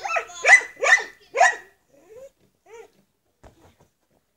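A dog barking three times in quick succession, then two fainter short calls.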